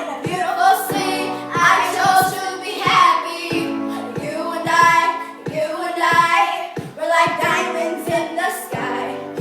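Young girls singing a pop song over a musical accompaniment of steady held chords.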